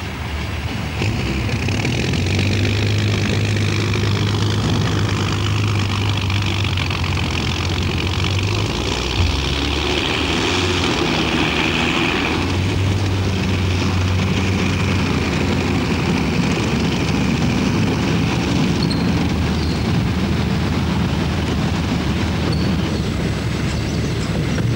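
Engine of a PTS tracked amphibious transporter running steadily under way, a deep low drone with broad mechanical noise above it. The tone changes about twelve seconds in.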